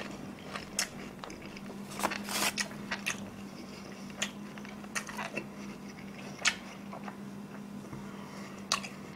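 Close-miked chewing: a person eating, with scattered, irregular crunches and moist mouth clicks, over a steady low electrical hum.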